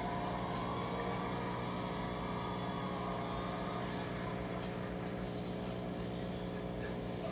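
Steady low mechanical hum of an aquarium air pump running the tank's sponge filters, unchanging throughout. A faint wavering higher tone drifts over it in the first few seconds.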